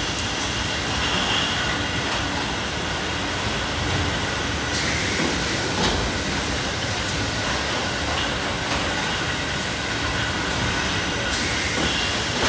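Steady running noise of a glass-bottle depalletiser and its bottle-handling line. A hiss in the highs comes in about five seconds in and drops away near the end, and there is a single knock around six seconds.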